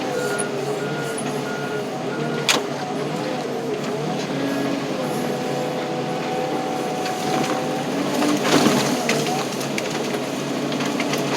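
Tractor engine running under load as it pushes brush and debris, its pitch wavering, with a backup alarm beeping in the first couple of seconds. A sharp crack comes about two and a half seconds in, and a louder burst of cracking and clattering about eight seconds in.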